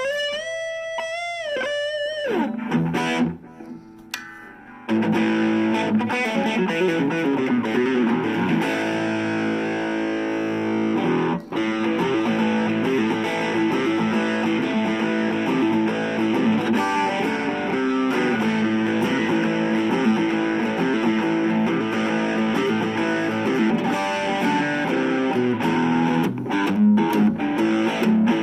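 Harley Benton CST24-HB electric guitar played through a Blackstar Fly 3 mini amp with distortion. It opens with single-note lead lines with string bends and vibrato, goes quieter for a moment, then about five seconds in moves into dense, sustained riffing and chords.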